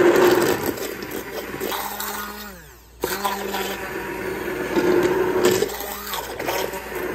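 Handheld immersion blender running in a pot of cooked tomato sauce, churning and puréeing the leftover tomato chunks. Its motor winds down about two and a half seconds in, then starts again at once about three seconds in.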